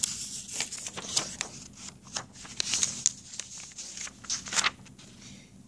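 A sheet of printer paper rustling and crinkling as it is handled close to a phone's microphone: a string of short, irregular crackles.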